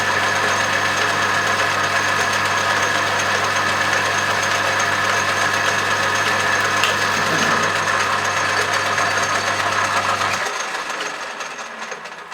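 Metal lathe running steadily as it turns a steel bar, with a steady hum and a high whine. About ten seconds in the motor's hum cuts out and the machine winds down, quieter and quieter.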